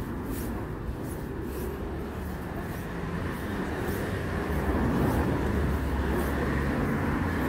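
Street traffic: a steady rumble of vehicles that grows louder from about four seconds in as a vehicle passes close. Faint regular footsteps run underneath.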